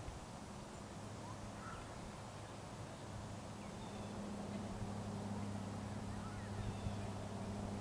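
A steady low hum that grows slightly louder about halfway through, with outdoor background noise and a few faint, short bird chirps early on.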